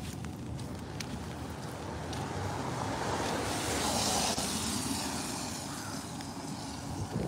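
A car passing on a wet road: the tyre hiss swells from about two seconds in, peaks around four seconds and fades away, over footsteps on wet pavement.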